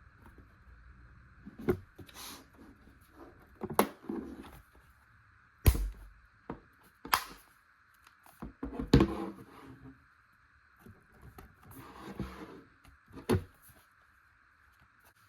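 Scattered handling sounds of small hard objects on a work surface: a dozen or so sharp clicks and knocks with some rustling between them, over a faint steady hiss. The loudest knocks come about six and nine seconds in.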